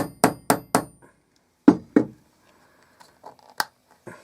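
Hammer striking a snap-setting tool to clinch a ring-prong snap fastener on leather: four quick metallic taps, about four a second, then two harder blows just under two seconds in. Lighter knocks and a sharp click follow near the end.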